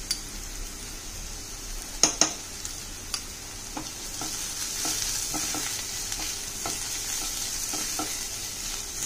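Chopped onion and green chillies sizzling in hot oil in a kadhai, with a spatula scraping and tapping against the pan as they are stirred. A sharp clink comes about two seconds in, and the sizzle swells a little from about halfway.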